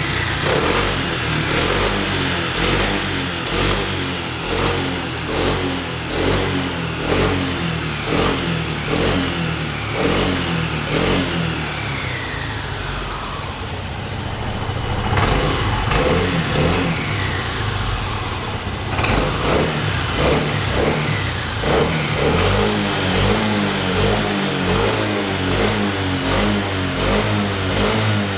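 Yamaha X-Max 250 scooter's single-cylinder four-stroke engine running, its throttle blipped again and again so the revs rise and fall in quick succession. Around the middle the revs drop away slowly, then the blipping starts again.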